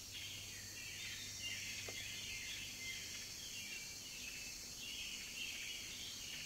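Birds chirping in a dense run of short, falling chirps over steady cassette hiss and a low hum.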